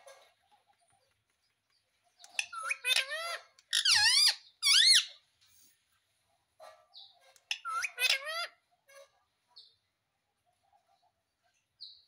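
Indian ringneck parrot calling in shrill, warbling bursts: three close bursts a few seconds in, then another short run a little later.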